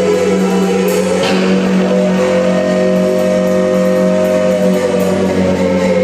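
Live band music: sustained pitched tones that bend slowly up and down over a steady low drone, with drums.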